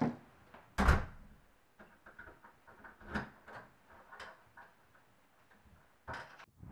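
A front door shutting with a sharp thud about a second in, then a few light clicks and rattles from the door, typical of it being locked with a key.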